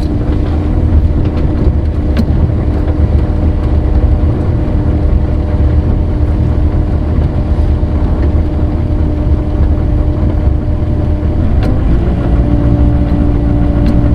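Compact tracked excavator's diesel engine running steadily under hydraulic load while digging. Its pitch dips briefly near the end, then settles again.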